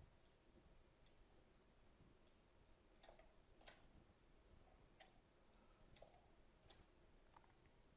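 Near silence with a few faint, irregularly spaced computer mouse clicks.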